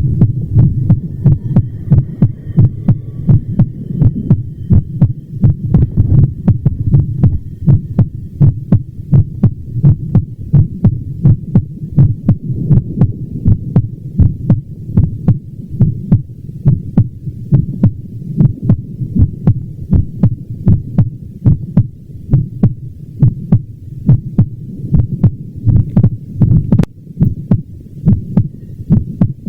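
Heart sounds: a steady, regular train of low heartbeats over a low hum, many beats carrying a sharp click.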